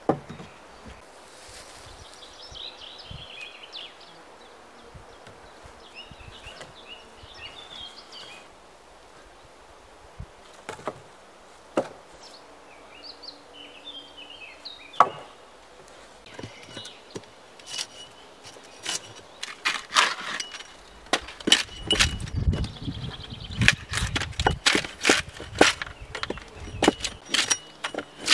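A few single wooden knocks as long poles are thrown onto a log roof frame. From about two-thirds of the way in, a hatchet chops into a log post in quick, repeated strokes, the loudest part.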